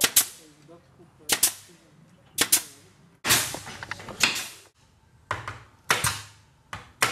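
Sharp knocks against a window frame as a large glass pane is fitted, about one a second with some in quick pairs. Faint voices can be heard between them.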